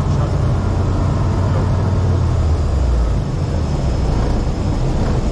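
Grob G109B motorglider's Rotax 912 four-cylinder engine running in flight, then shut down about three seconds in as the propeller stops. Steady airflow rush and rumble over the cockpit remain, the aircraft now gliding with the engine off.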